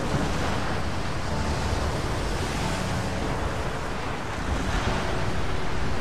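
Blizzard wind sound effect: a steady rushing noise, with background music faint underneath.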